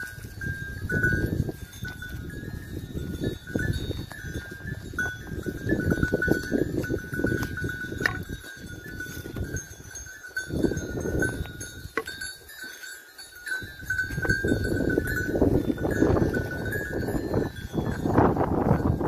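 Bells on a grazing flock of sheep clinking and ringing irregularly as the animals move, over a steady low rustle of the flock and the walker going through dry scrub.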